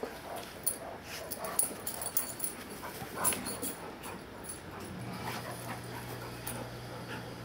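Two Newfoundland dogs play-wrestling: irregular scuffling and clicking noises with short dog vocal sounds mixed in. A steady low hum comes in about five seconds in.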